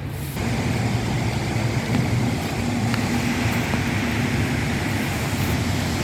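Steady rushing roar of the Chania Falls waterfall, starting abruptly about a third of a second in.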